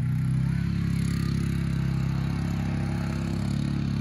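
ATV engine running steadily at low speed as the four-wheeler drives along, with a little rattle.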